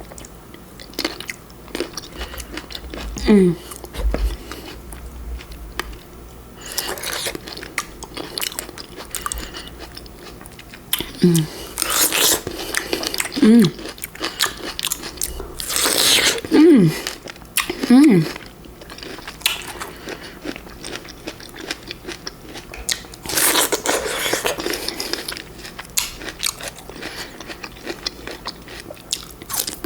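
Close-up biting and chewing of fresh fruit, with crisp crunchy bites and wet chewing throughout. About five short falling voice sounds from the eater come in between bites.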